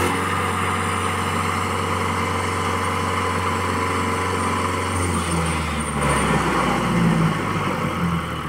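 Swaraj 843 diesel tractor engine running hard under load, trying to drag a loaded sand trolley out of soft sand. About five to six seconds in, the engine note drops lower and gets louder as it lugs.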